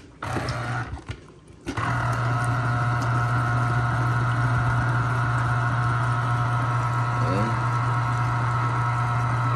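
Electric citrus juicer's motor humming as a lemon is pressed onto its spinning reamer. It runs briefly, stops for about a second, then hums steadily for about eight seconds before cutting off.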